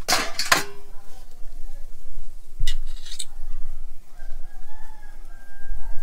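Metal clatter of a fork and steel bowl at the start, with a couple of lighter clinks about halfway through. Near the end a rooster starts crowing.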